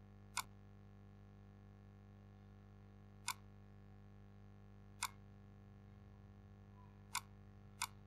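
Five short, sharp computer-mouse clicks at uneven spacing, the last two under a second apart, over a faint steady electrical hum.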